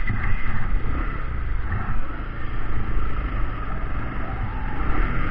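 Wind rumbling on the microphone over vehicle and road noise while riding along a road.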